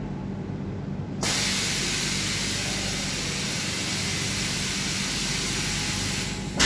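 Automatic cleaning and degreasing machine humming steadily; about a second in, a loud, steady hiss starts suddenly and runs while the cabinet's front door lifts open, swelling louder just at the end.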